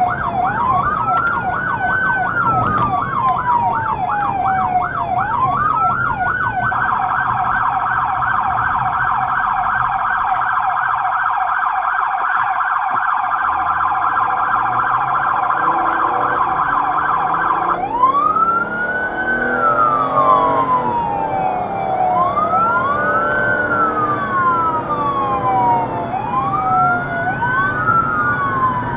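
Soundoff Signal electronic siren on a responding vehicle, switching between tones: slow rising and falling wail sweeps, a fast yelp from about seven seconds in, then back to the slow wail about eleven seconds later.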